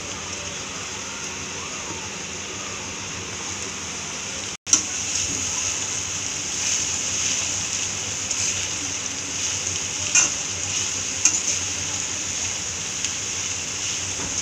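Shredded cabbage, carrot, capsicum and green chillies sizzling in hot oil in a steel kadhai while being stir-fried with a metal spatula, with a few clinks of the spatula against the pan. The sound cuts out for an instant about a third of the way in, then the sizzling is louder.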